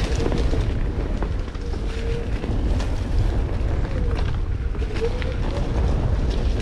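Wind rushing over the microphone and tyre rumble from a Onewheel GT rolling over a dirt trail, with the board's hub motor whining faintly and its pitch rising and falling as the speed changes.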